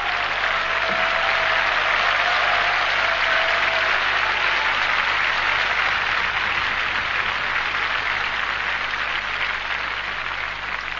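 Cabaret audience applauding steadily, the clapping dying down near the end.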